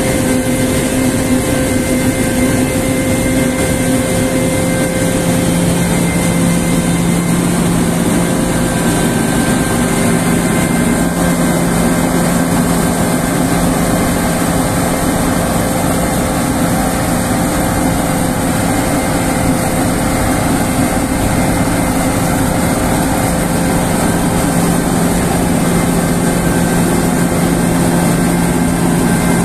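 Fendt 5255 L combine harvester running close by while threshing alfalfa: a loud, steady drone of engine and threshing machinery with a constant hum and whine.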